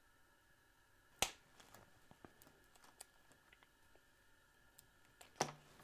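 Small flush side cutters snipping through a sleeved LED strip: one sharp snip about a second in, followed by a few faint clicks and a louder handling rustle near the end.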